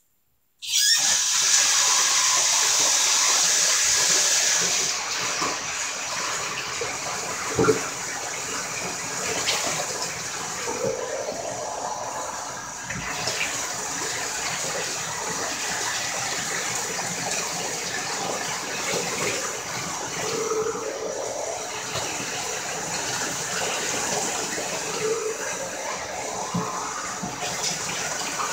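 Bathtub shower water turned on about half a second in and running steadily onto a dog being rinsed in the tub. It is loudest for the first few seconds, then a little quieter, with a single sharp knock partway through.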